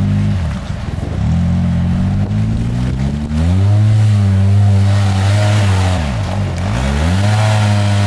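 Side-by-side UTV's engine revving hard while its tyres churn through deep mud. The revs drop away about half a second in, climb back up after a few seconds, dip once more near the end and then pick up again.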